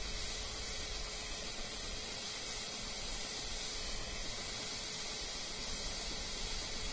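Helicopter idling on the ground with its main rotor turning: a steady rushing hiss with a faint steady hum under it.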